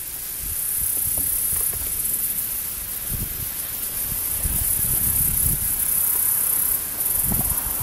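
Marsh ambience: a steady high-pitched hiss of insects, with low gusts of wind rumbling on the microphone.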